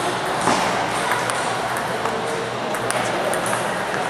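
Table tennis ball ticking off paddles and the table during a rally, sharp strikes at uneven intervals, over the steady background noise of a busy playing hall.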